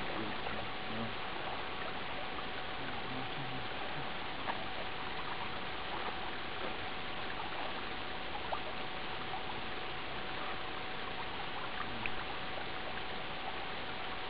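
Steady hiss with a faint, even hum and a few faint ticks scattered through it; no distinct event stands out.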